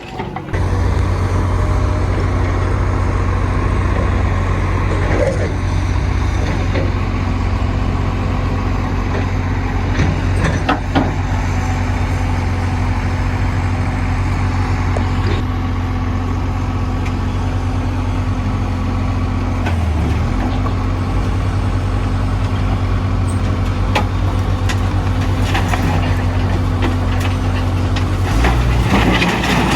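Diesel engine of heavy equipment running steadily, with scattered knocks and clanks. The engine note shifts briefly about two-thirds of the way through and again near the end.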